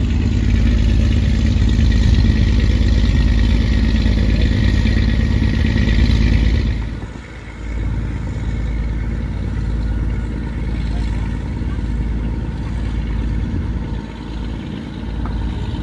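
Wind buffeting the microphone on the deck of a moving cruise ship: a steady low rumble, with a higher hiss that stops suddenly about seven seconds in.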